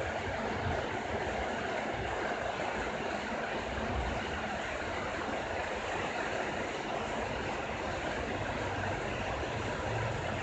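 Steady rain falling: an even hiss with a low, uneven rumble underneath.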